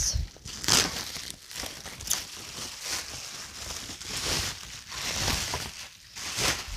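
Plastic bubble wrap crinkling and rustling in irregular bursts as it is handled and pulled off a boxed item by hand.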